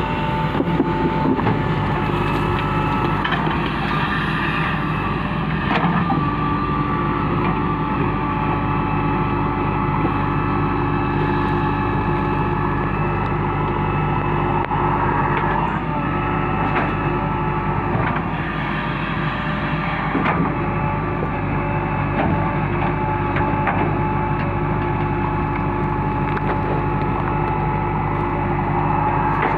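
Backhoe loader's diesel engine running steadily under work, with a few scattered knocks.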